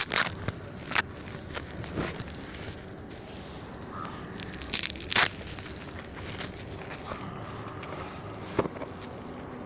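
Plastic bubble wrap crinkling and crackling as hands pull and handle it around a boxed TV box, with several sharp crackles, the loudest about five seconds in.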